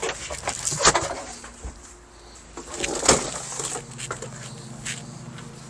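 Knocks and scuffs of a person climbing into the cab of a Kioti CK3510 SE compact tractor and back out again, boots on the metal step: sharp knocks about a second in and, loudest, about three seconds in, over a steady low hum.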